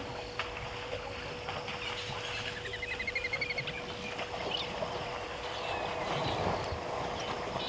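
Elephant herd moving through the shallow water and mud at the edge of a waterhole, with splashing and sloshing. A bird gives a quick rising trill about three seconds in, over a steady faint hum.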